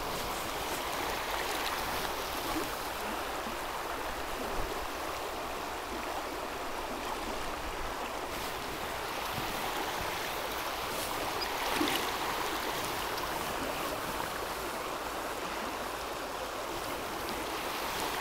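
Shallow freestone river running over stones in a riffle: a steady rush of water.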